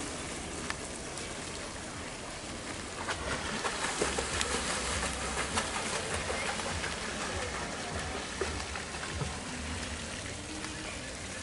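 Swimming-pool water splashing as children swim and kick, heard from a distance as a steady wash of water with sharper splashes that pick up a few seconds in.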